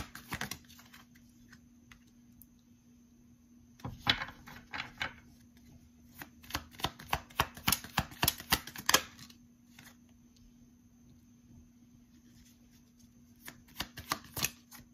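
A tarot deck being shuffled by hand, in spells of quick crisp card clicks and flicks: one near the start, one around four seconds in, a longer run from about six and a half to nine seconds, and a short one near the end. A faint steady hum lies under the quiet gaps.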